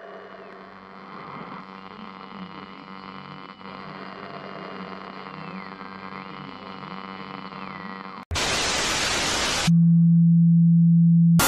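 Electronic drone of many steady layered tones, with a faint high tone that drops and climbs back. About eight seconds in it cuts off for a loud burst of white-noise static lasting about a second and a half. Then comes a loud, steady low hum-like tone for nearly two seconds, ended by another short crack of static.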